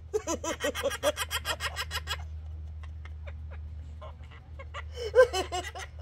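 A quick run of laughter, about eight rapid pulses a second for roughly two seconds, with a shorter burst of laughing near the end, over a steady low hum.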